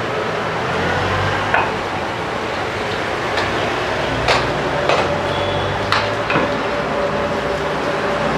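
Long metal slotted ladle stirring rice in a large aluminium pot of spiced, bubbling water, clinking against the pot about six times over a steady hiss.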